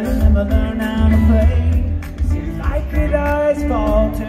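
A live rock band playing, with electric guitars, bass guitar and drums. A melodic line glides and bends over a heavy, pulsing low end.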